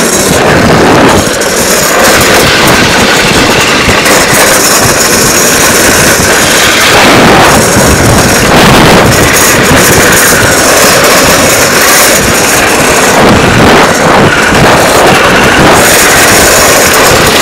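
Hard plastic rear wheels of a drift trike rolling and sliding on asphalt at speed, a loud, steady, rough rushing noise.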